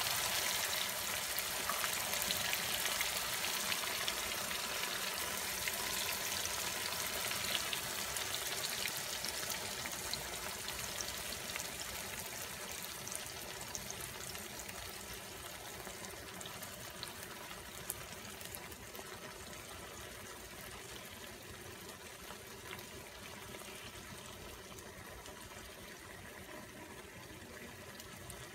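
A steady hissing noise that slowly fades away, with a few faint ticks.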